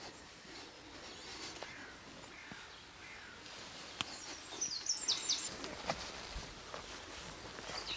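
Birds singing in the open countryside, faint short chirps throughout, with a quick run of high, falling notes about five seconds in. Two sharp clicks break in, about four and six seconds in.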